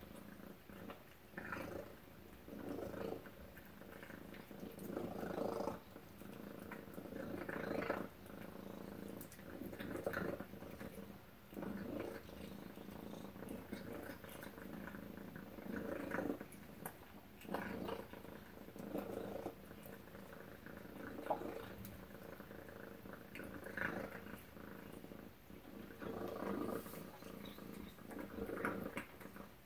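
Domestic tabby cat purring while it eats wet food from a metal bowl; the purr swells and fades in uneven surges about every one to two seconds.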